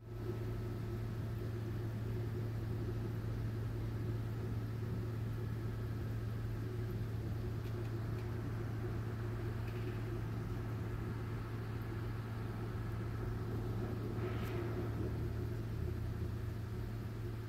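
Steady low electrical hum of aquarium equipment, such as the air pumps that run sponge filters in a fish shop, with a faint hiss over it.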